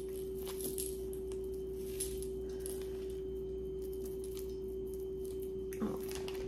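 A steady hum at a single pitch, with a few faint clicks and clinks of costume jewelry being handled and taken from a bag.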